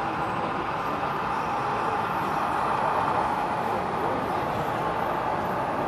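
Model train running along the track of a model railway layout: a steady rumbling whir, slightly louder about halfway through as it passes.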